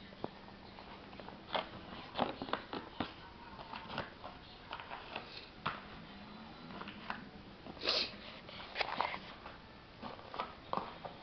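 Paper plate crackling and scraping in irregular bursts as a Shih Tzu chews and shoves it around, with a single sniff about eight seconds in.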